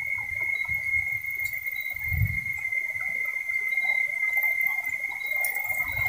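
Steady high-pitched drone of cicadas in dry forest, with occasional low rumbles of wind on the microphone.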